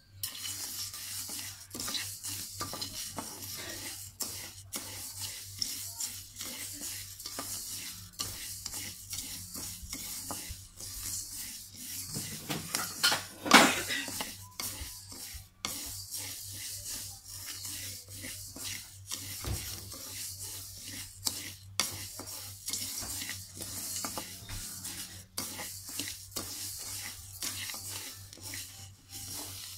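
A wooden spatula stirring and scraping raw glutinous rice around a dry wok as it is slowly dry-roasted over low heat for toasted rice powder. The grains are still white, early in the roast. The sound is a steady run of scraping strokes, with one much louder stroke about halfway through.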